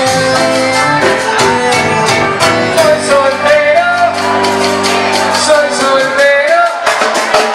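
Live band music played loud through a PA in a large hall, with regular drum and cymbal hits and held bass and keyboard notes. A singing voice, sliding up and down, comes in about three seconds in.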